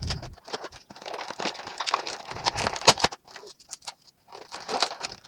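Plastic and cardboard toy packaging being handled and opened: crinkling and crackling with sharp clicks, in two spells, the second shorter, near the end.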